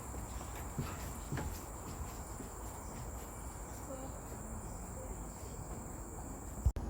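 Insects droning with one steady high-pitched tone, over faint background noise. The drone cuts off abruptly near the end.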